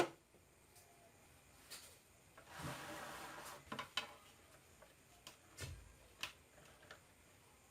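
Light handling noise: a few scattered clicks and knocks, with a short soft rustle about three seconds in and a dull thump a little later.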